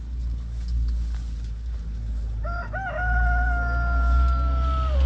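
A rooster crowing once, beginning about two and a half seconds in: a couple of short rising notes, then one long held note that drops away at the end. A steady low rumble lies underneath throughout.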